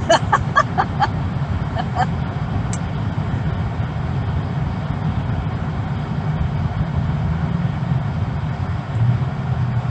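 Steady low road and engine rumble heard inside a moving car's cabin, with a few brief voice sounds in the first second or two.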